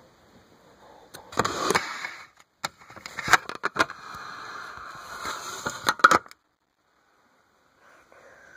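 Handling noise from the recording device as it is picked up and moved: its microphone rubs against skin and clothing, with sharp knocks and clicks. The sound cuts off abruptly about six seconds in, leaving a second or more of dead silence.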